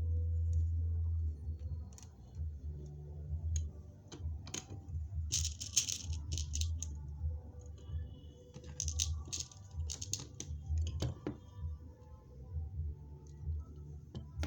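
Small metal rivet beads and machine parts clicking and rattling in two short spells, over a steady low hum.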